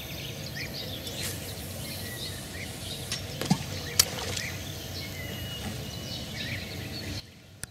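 Small birds chirping and calling over a steady outdoor background hum, with two sharp clicks a little past the middle. The sound drops abruptly to near quiet shortly before the end.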